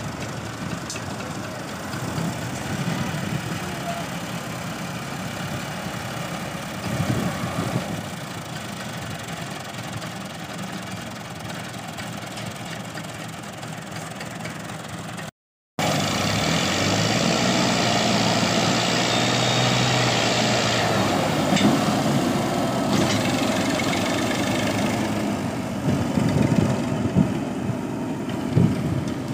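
Massey Ferguson 240 tractor's diesel engine running hard under load, straining to pull a stuck trolley heavily loaded with wheat straw. About halfway through it becomes louder and steadier.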